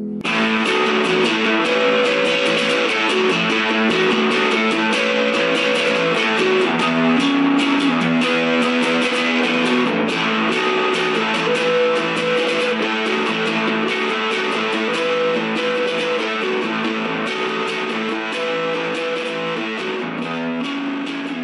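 Fender Jaguar electric guitar played through the Mellowtone FuzzKit fuzz pedal into a small test amplifier: a riff of changing notes with a thick, distorted fuzz tone. The sound turns suddenly louder and brighter just after the start, as the fuzz comes in after the clean sound.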